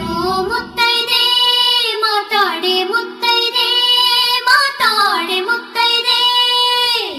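Devotional song in Kannada: a single high voice sings long held notes that slide down twice, with no drums or bass under it.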